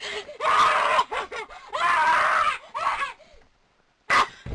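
A person screaming in several loud, drawn-out bursts, then falling quiet. A single sharp knock comes near the end.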